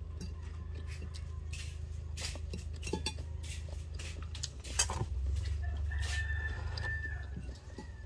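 A rooster crows once, a held call about six seconds in that drops at the end. Around it a plastic fork clicks now and then against a ceramic plate, over a steady low hum.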